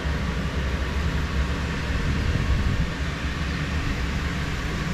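Electric inflator blower of a bouncy castle running steadily, a constant low rumbling fan noise keeping the castle inflated.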